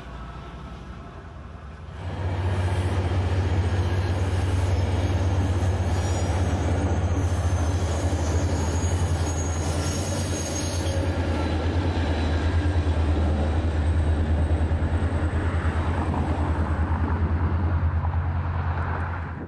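An ACE commuter train crossing a steel girder bridge: a loud, steady rumble of wheels with a deep hum throughout, starting suddenly about two seconds in and dropping off sharply near the end. Before that, a quieter passing passenger train can be heard.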